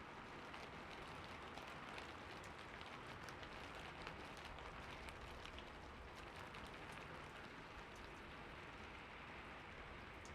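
Steady rain falling, many separate drops pattering over an even hiss.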